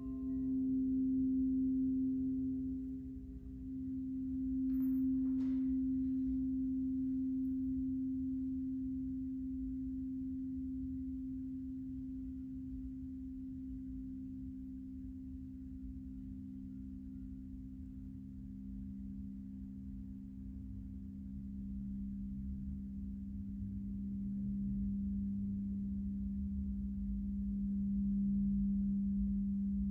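Gong-bath instruments ringing in steady, low humming tones at two close pitches that swell and ebb. The higher tone leads at first and the lower one takes over toward the end, with a light strike about five seconds in.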